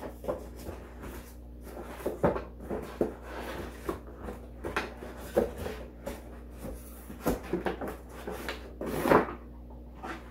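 Cardboard box and plastic packaging tray being handled as a boxed telephone is slid back into its box: irregular scraping, rustling and knocks, with the loudest, longer scrape a second or so before the end as the box is pushed shut.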